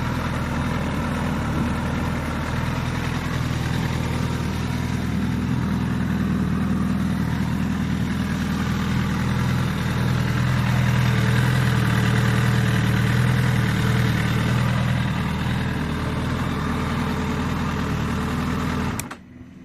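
Suzuki GSX-S1000 GT+ engine idling steadily, a little louder for a few seconds in the middle, then stopping abruptly near the end.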